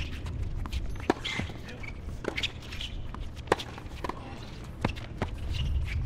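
Tennis ball hit back and forth with rackets in a doubles rally on a hard court: sharp pops and ball bounces about once a second, with the players' footwork between them.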